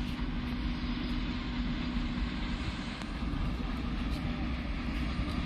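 Steady vehicle rumble and hiss, with a low steady hum that fades about halfway through and returns near the end.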